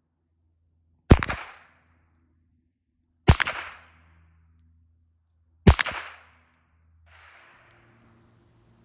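Three gunshots a little over two seconds apart, each a sharp crack with a short echo trailing off.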